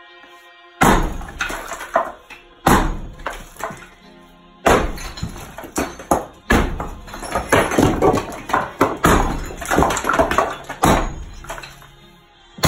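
A music track plays throughout, over sledgehammer blows on a brick chimney and its wooden support. The first loud hit comes about a second in, with more roughly every two seconds.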